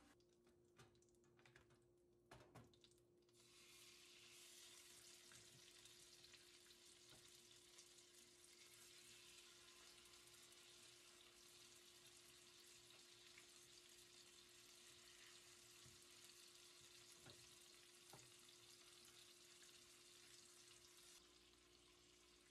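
A few knife taps on a wooden cutting board, then food sizzling in a stainless steel frying pan. The steady sizzle starts about three seconds in and dies down shortly before the end.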